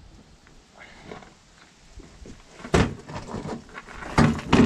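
Sharp metallic knocks and clanks from work on a sprayer's rinse-tank hose clamps with a cordless drill. The first comes about two and a half seconds in, then a few lighter ones, then two loud ones close together near the end.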